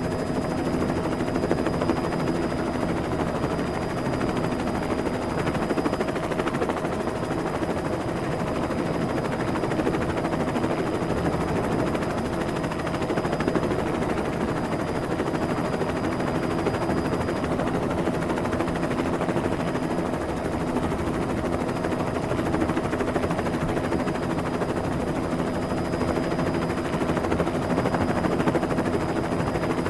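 Helicopter sound effect: steady rotor chop over a continuous engine drone, unchanging in level.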